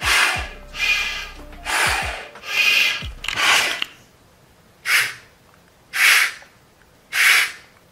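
Air being drawn and blown through a dry snorkel tube: five quick rasping breaths in a row, then three short, sharp pulls about a second apart. It is a test of the dry-top valve's seal, so that no air gets through when he draws in.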